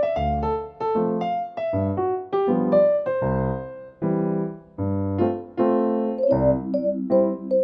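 Background music: an electric piano playing a gentle melody over bass chords, with a note struck about every half second.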